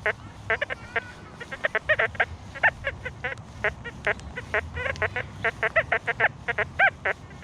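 XP Deus 2 metal detector's audio: a rapid, choppy run of short beeps, some low and some higher, a few warbling in pitch, as the coil sweeps over a patch of iron and foil junk.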